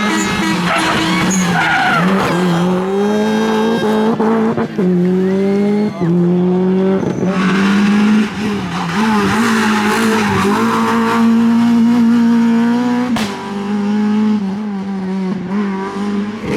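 Rally car engine driven hard, revving up and dropping back again and again through gear changes and lifts, with tyres skidding. A single sharp crack sounds about two-thirds of the way through.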